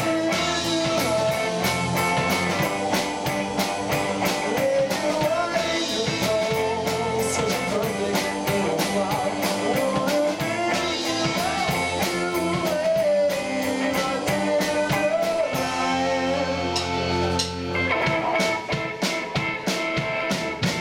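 Live rock band playing: distorted electric guitars, bass guitar, drum kit and keyboard, with a lead vocal.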